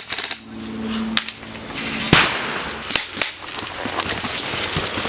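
Airsoft guns firing: a short rapid burst of buzzing fire near the start, then a loud sharp crack about two seconds in, followed by scattered quick clicks and snaps.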